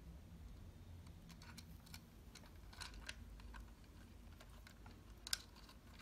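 Faint small clicks and light handling noise from a wall socket faceplate and its wiring being handled, with one sharper click about five seconds in.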